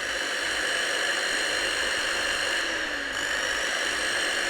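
Vacuum cleaner motor running straight off the mains: a steady high whine over rushing air, having just spun up. The motor is burnt out.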